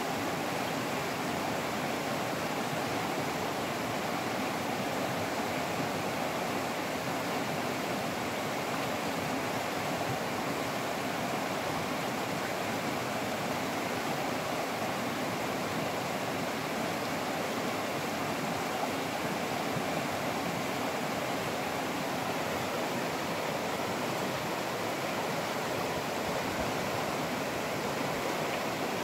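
Shallow, fast river running over a cobble bed: a steady, unbroken rush of water.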